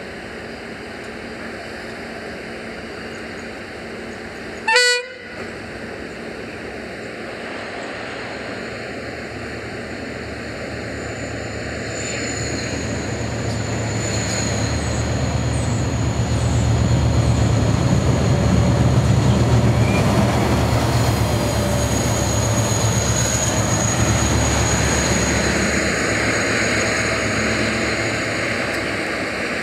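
Irish Rail class 071 diesel locomotive sounding one short horn toot about five seconds in, then its EMD two-stroke V12 engine rumble growing louder as it approaches, loudest around the middle and easing off near the end. Thin high wheel squeals sound above the engine while it is closest.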